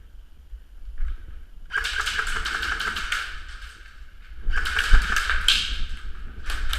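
Airsoft gun firing two rapid full-auto bursts, each a fast run of clicks about a second and a half long, the second starting about four and a half seconds in.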